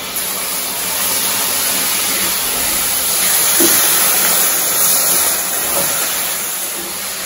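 Sugar and a little water sizzling with a steady hiss in a hot stainless steel pan as it is stirred with a wooden spatula.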